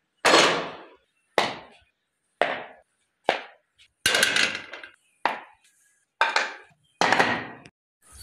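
A series of eight hard strikes, about one a second and not quite evenly spaced, each dying away over about half a second.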